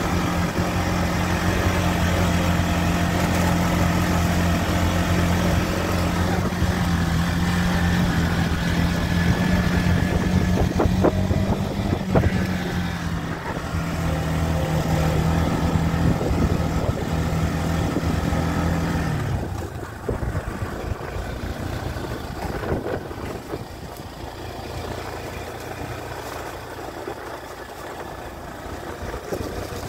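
Minsk X250 enduro motorcycle engine running at a steady pitch, then about two-thirds of the way through its note drops and quietens to a lower, idle-like running.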